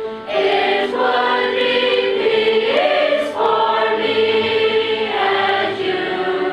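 Large children's school choir singing a slow song together, long held notes in phrases a second or two long with short breaks between them.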